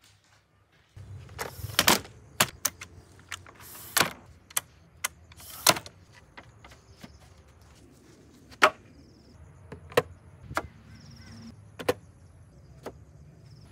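Worx Pegasus folding work table being unfolded and set up: a series of sharp plastic clacks and latch snaps, the loudest in quick succession over the first few seconds, then sparser knocks as a wooden board is handled on it.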